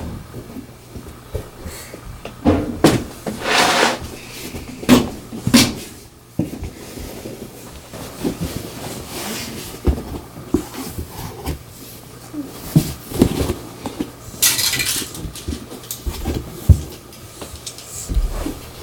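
Fabric storage cubes handled, bumped and shifted on carpet by a small child, with scattered soft thumps and knocks and a couple of longer rustling scrapes.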